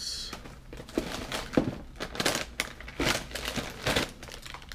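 Plastic snack wrappers crinkling and rustling as hands rummage through a box of packaged snacks, with irregular sharper crackles.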